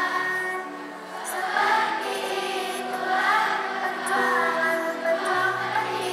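A choir of children singing a song together in unison to instrumental accompaniment, with long held notes.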